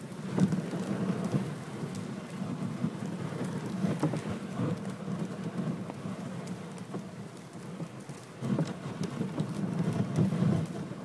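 Reindeer-drawn sleigh moving over packed snow: a steady crunching rumble of the runners and hooves, with small scattered knocks.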